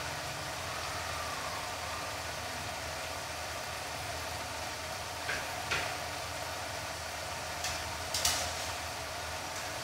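Food sizzling steadily in a frying pan on the stove, with a low hum underneath and a few sharp crackles a little past halfway and again near the end.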